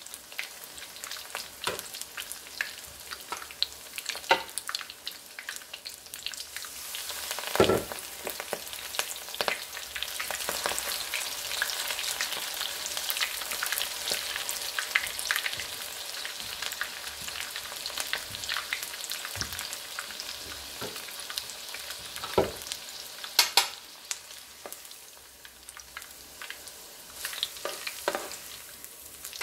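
Battered spring greens and flowers deep-frying in hot oil: a steady crackling sizzle that grows louder about a quarter of the way in as fresh battered pieces go into the pan. A few sharp clicks come from the metal tongs knocking against the pan.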